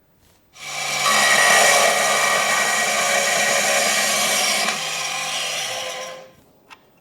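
A power tool used for machining starts up about half a second in and runs for about five seconds, giving a loud even hiss over a steady low hum. It then winds down, its hum dropping in pitch, and stops.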